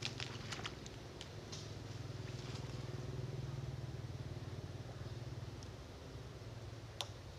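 A low, steady engine drone that grows louder toward the middle and fades after about five seconds, with a few light clicks in the first second or so and one sharp click near the end.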